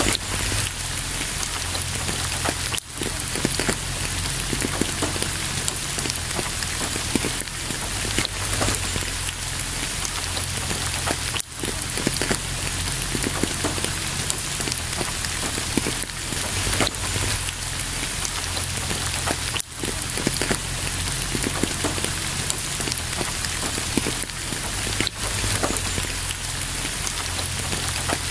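Steady rain, a dense, even hiss of falling drops that dips for an instant a few times.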